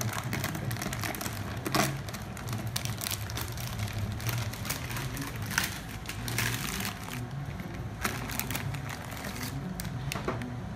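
Plastic bag crinkling as a metal-cased bitcoin miner is pulled out of it and handled, with light knocks of the metal case, one near the end as it is set down.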